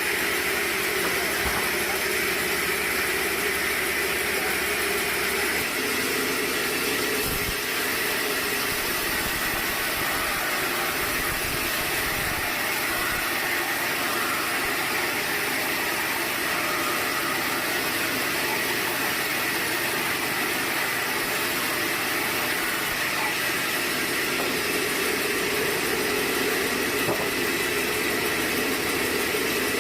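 Sawmill machinery running steadily: a continuous mechanical drone and hiss with no breaks or distinct impacts.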